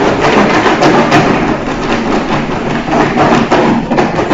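A box of folded paper lots shaken hard by hand, with a dense, fast rattle of the lots knocking inside it.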